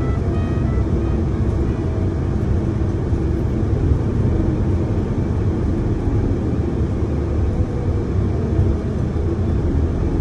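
Steady low rumble of a bus's engine and tyres, heard from inside the moving bus.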